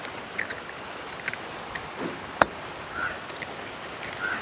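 Eggs being cracked against the rim of a steel mixing bowl, with one sharp crack about two and a half seconds in and a few lighter taps, over a steady background hiss.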